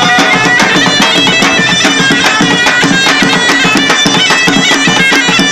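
Aissawa music: a ghaita (a loud double-reed shawm) plays a melody over large double-headed drums beaten with sticks.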